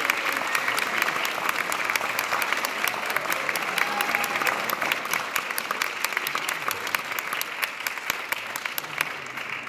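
Audience applauding, a dense patter of many hands with some close, sharp claps standing out; it thins and grows quieter near the end.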